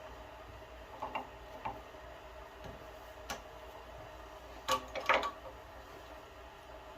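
A few light metallic clinks and knocks of tools and plumbing fittings being handled, the loudest cluster about five seconds in, over a steady hum.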